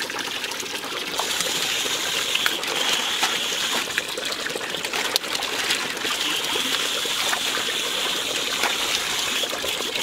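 Water from a pump hose gushing and bubbling steadily into a crowded koi tank, with scattered small splashes as koi are caught by hand in the water.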